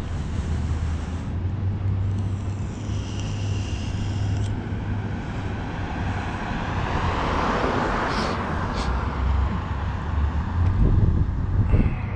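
A car driving past on the road, its tyre and engine noise swelling to a peak about eight seconds in and then fading, over a steady low rumble.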